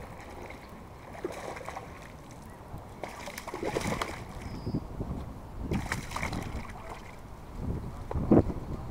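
A hooked bass splashing and thrashing at the water's surface as it is reeled in, in two spells of splashing. A sharp thump near the end as the fish is lifted out onto the rocks.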